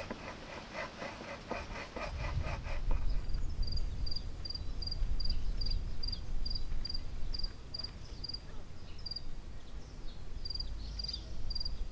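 Hand saw cutting through a board, about three strokes a second, stopping about three seconds in. Then a cricket chirps steadily at two to three chirps a second, with a short break shortly before ten seconds, over a low rumble.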